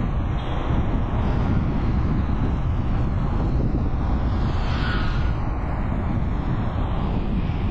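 Steady rushing wind and road noise from a moving vehicle, heavy and low, with a brief swell of hiss about five seconds in.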